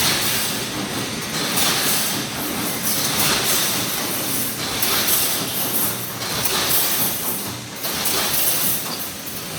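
Wire mesh welding machine running, a steady mechanical clatter and hiss that surges in a repeating cycle about every second and a half.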